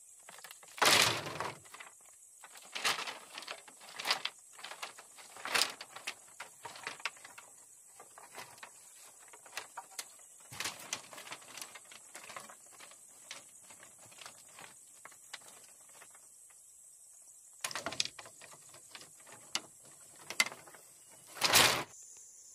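Irregular knocks, taps and clatters of hand work, with a loud thump about a second in and another near the end.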